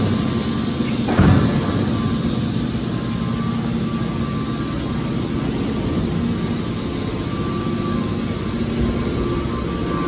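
Hydraulic scrap-metal baler running, with the steady hum of its hydraulic power unit and one heavy thump about a second in.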